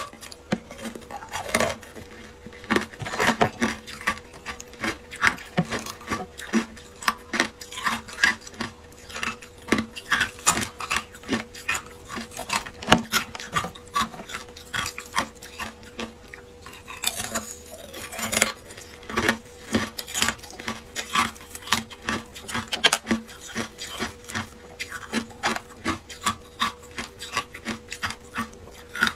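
Thin ice crackling and crunching close to the microphone as it is bitten and snapped apart by hand, in many quick, irregular cracks.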